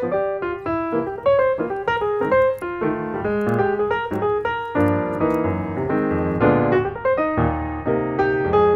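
Background piano music, a flowing line of separate notes with fuller chords from about halfway through.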